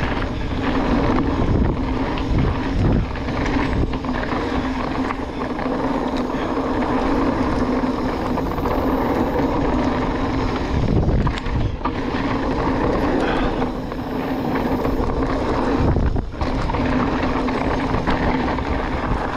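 Mountain bike descending a dirt trail: steady tyre noise on packed dirt and loose stones with the bike rattling, a constant hum and wind on the microphone, and a few knocks from bumps in the second half.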